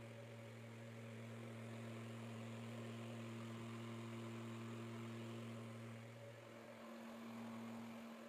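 Small DC motor fan of a homemade PVC-pipe fan heater running: a steady low hum with a few higher tones over an airy rush of blown air, wavering briefly near the end.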